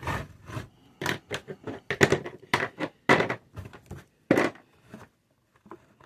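Hard plastic action-figure parts clicking and rubbing as the weapons are handled and fitted into their holders on the figure: irregular sharp clicks and scrapes, with a short pause about five seconds in.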